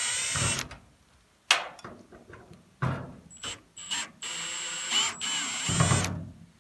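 Power drill running in reverse, backing out the screws of an old shed door handle: a short run at the start, then a longer steady run from about three seconds in, with a few clicks and knocks between.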